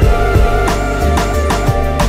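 Background music: a soundtrack track with held instrumental notes over a steady beat of percussion.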